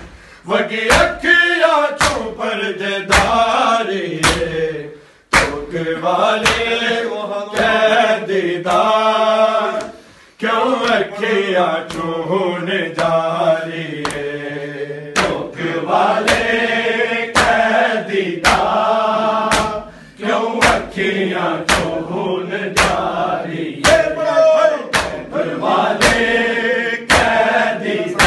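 Men's voices chanting a noha in unison, with sharp hand slaps on bare chests (matam) keeping a steady beat of roughly one a second. The chant breaks off briefly twice, about five and ten seconds in.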